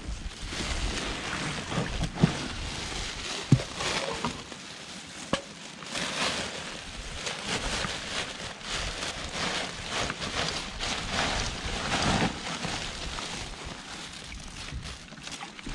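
Rustling and crinkling of a woven plastic sack and a mesh net being handled as the net is emptied into the sack, with a few sharp clicks in the first five seconds.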